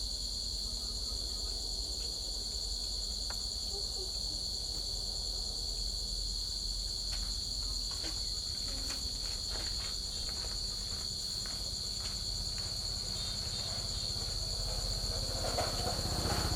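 Crickets chirping in a steady, continuous high-pitched trill, with a few faint clicks in the second half and a rise in louder, rougher noise near the end.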